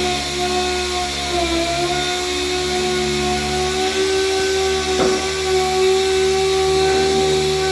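Power sander running steadily on a car roof with 180-grit paper, its pitch sagging briefly about a second and a half in, with a sharp click about five seconds in.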